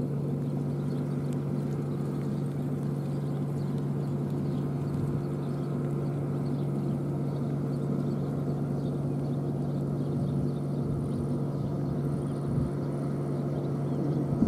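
Steady low mechanical hum, like a motor running, with faint hoofbeats of a trotting pair of carriage horses.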